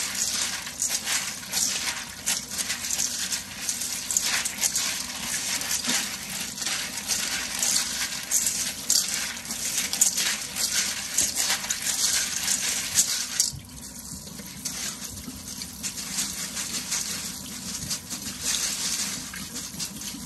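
Tap water running from a kitchen faucet into a stainless-steel colander of dried pinto beans, which click and rattle against the metal as hands scrub them around to wash them. About two-thirds of the way through it turns quieter.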